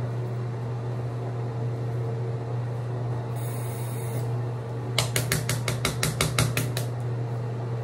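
A steady low hum, with a brief high hiss about three and a half seconds in. About five seconds in comes a quick run of about a dozen sharp taps, some six a second, lasting two seconds.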